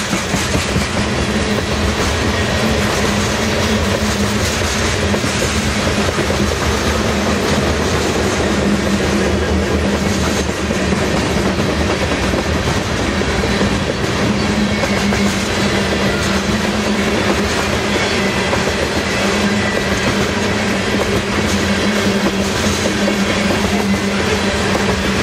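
Coal train hopper cars rolling past at steady speed: a continuous rumble of steel wheels on rail, with a steady low hum running under it.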